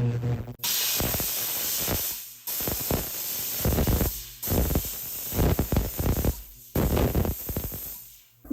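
A jeweler's steam cleaner blasting the ring in four hissing jets of about two seconds each, with short breaks between them.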